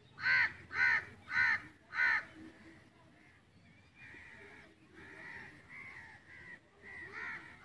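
A bird calling: four loud calls about half a second apart, then fainter calls through the rest.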